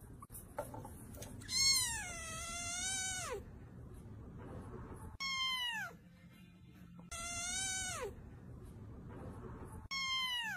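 A cat meowing four times, each drawn-out meow dropping in pitch at its end; the first and third are the longest.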